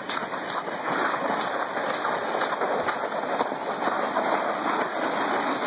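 Plastic sled sliding over wet, slushy snow as it is pulled along: a steady scraping hiss.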